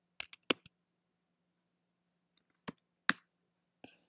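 Computer keyboard keystrokes: a quick run of about five key clicks in the first second, then a few single, spaced-out key presses.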